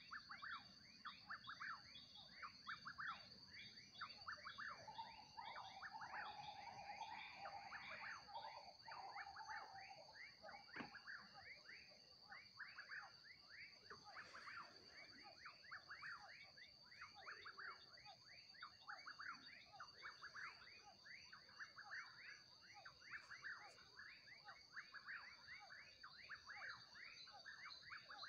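Faint nighttime chorus of wild animals in the forest: a steady high-pitched insect drone, with many short falling calls repeating several times a second and overlapping.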